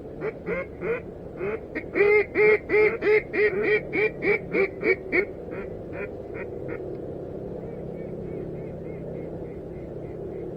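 A duck call blown in a fast run of loud quacks, about four a second, that tapers off in loudness, followed by a fainter run of quacks near the end: calling to passing ducks.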